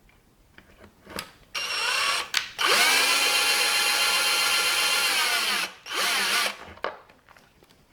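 Power drill running in short bursts: a brief spin, then about three seconds of steady high whine that winds down, then another quick burst. It is drilling a shallow hole a little deeper so a longer screw will catch.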